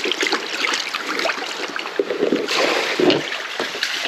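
Water running from a garden hose into a container, splashing and trickling as it fills.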